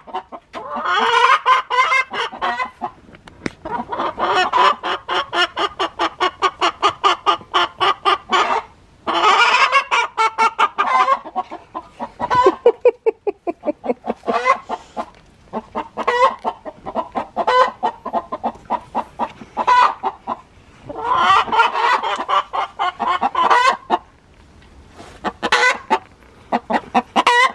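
Several hens cackling loudly in long bouts of rapid, repeated clucks with brief pauses between bouts. This is the noisy cackling that non-laying hens keep up while another hen of the flock is laying.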